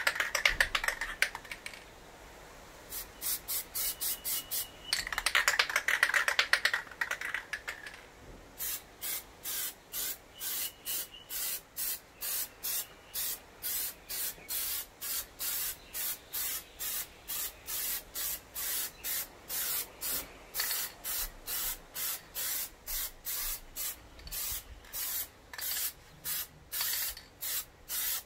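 Aerosol can of Plasti Dip glossifier. It rattles twice in the first seven seconds or so as it is shaken, then sprays in a long run of short hissing bursts, about two a second.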